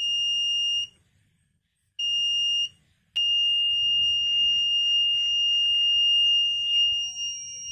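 Electronic buzzer on homemade ultrasonic obstacle-sensing glasses sounding one steady high tone. It gives two short beeps, then a continuous tone from about three seconds in, signalling a hand held close in front of the ultrasonic sensor.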